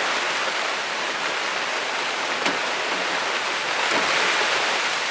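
A steady rushing hiss, with one faint click about two and a half seconds in as wiring connectors are pulled off behind the van's steering column.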